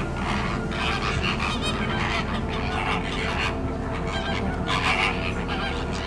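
A flock of greater flamingos calling, many goose-like honks overlapping without a break, over a steady low rumble.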